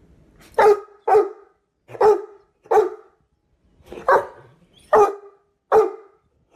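A dog barking, about seven short single barks at an uneven pace.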